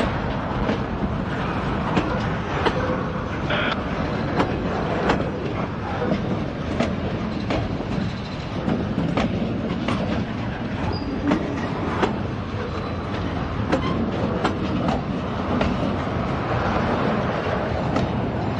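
Freight train of loaded steel-plate flatcars rolling past with a steady rumble, its wheels clicking over rail joints about once a second.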